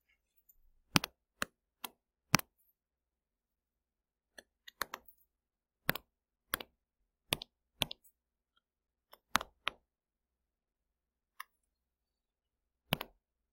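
Sharp clicks as highlighter tools are picked from a toolbar and text is highlighted on a computer screen. The clicks come singly and in quick pairs, irregularly spaced, with silence between.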